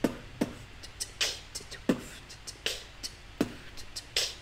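A man beatboxing a slow, simple beat with his mouth: low kick sounds alternating with sharp hissing snare sounds, about one every three-quarters of a second, with small clicks in between. It is a beginner's attempt.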